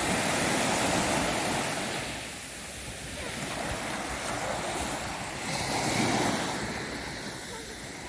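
Sea waves breaking and washing up the shore, with wind on the microphone. The surf swells loudest in the first second or so and again about six seconds in.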